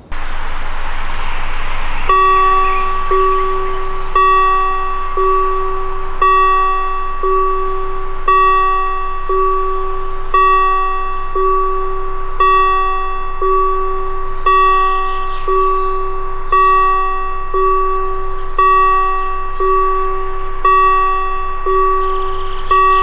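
Railway level-crossing warning bell ringing, one stroke about every second, each stroke ringing out before the next: the crossing's warning that a train is approaching. A rushing noise comes before the bell starts, about two seconds in.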